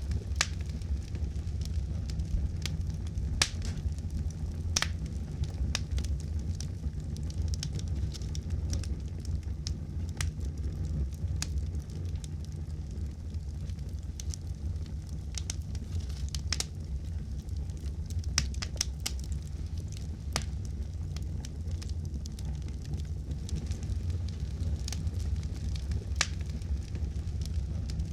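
Campfire burning: a steady low rumble of flames with sharp, irregular crackles and pops of burning wood scattered throughout.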